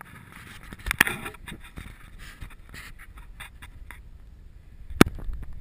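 A run of irregular clicks and rustles close to the microphone, the loudest about a second in, then a single sharp knock near the end, over a low rumble.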